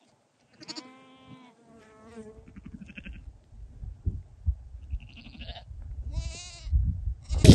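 Sheep or goats bleating: two quavering bleats, one about half a second in and another around six seconds in. A few dull thumps sound between them and grow louder near the end.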